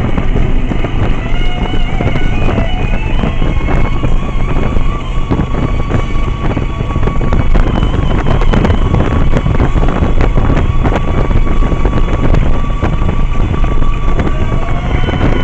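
Music playing over the heavy rush of riding wind on the microphone and the running engine of a Yamaha 1100 motorcycle.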